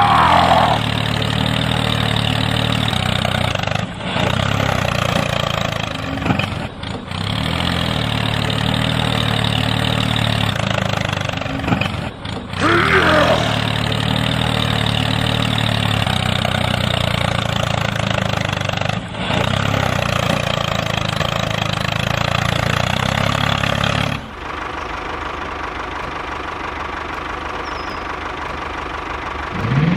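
Tractor engine running steadily, broken by brief gaps at shot changes. About 24 seconds in it gives way to a quieter, thinner running sound.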